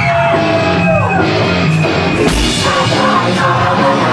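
Loud live rock band playing: guitars and drums with singing, drum and cymbal hits coming through from about two seconds in.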